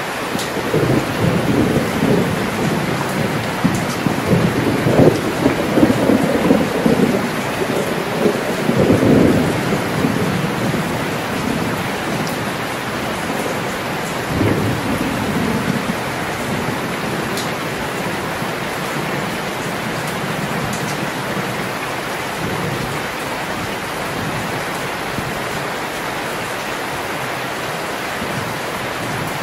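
Heavy rain pouring steadily, with a long rolling rumble of thunder that swells over the first ten seconds or so and a shorter second rumble about fourteen seconds in.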